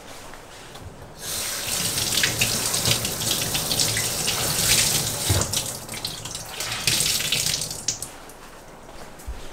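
Kitchen tap turned on about a second in, water running over hands and a cloth being rinsed and squeezed in a stainless steel sink, then shut off near the end.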